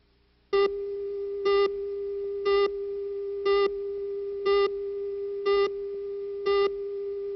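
Tape countdown leader: a steady single-pitch tone with a louder, buzzier beep once a second, seven beeps in all, starting about half a second in.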